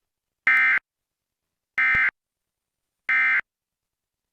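Emergency Alert System end-of-message code: three short bursts of shrill digital data tones about a second apart, signalling that the test alert is over.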